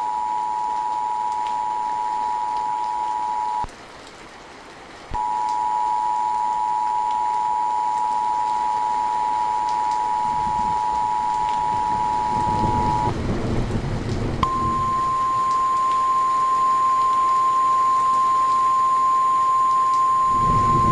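Emergency Alert System two-tone attention signal, 853 and 960 Hz sounded together. It breaks off for about a second and a half near the start, resumes, and stops about 13 seconds in. A low rumble of thunder follows, then the single steady 1050 Hz weather-radio warning tone, all over a steady hiss of rain.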